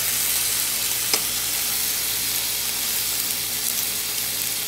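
Thin cuts of meat sizzling steadily in hot oil in a nonstick skillet, with one light tap about a second in.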